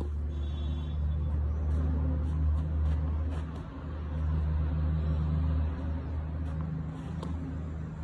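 A low, steady engine-like hum that swells and eases, with a few sharp knocks of a tennis ball struck by a racket, the clearest about seven seconds in.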